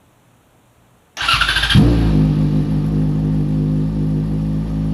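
Yamaha FZ6R's 600 cc inline-four engine being started on the electric starter: about a second in the starter cranks briefly, the engine catches about half a second later with a small rise, then settles into a steady idle.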